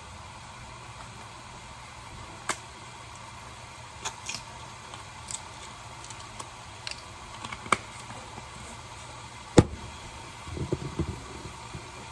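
Scattered clicks and taps of a seasoning container being handled and opened. There is one sharp, much louder click about ten seconds in and a few small knocks just after it, over steady background hiss.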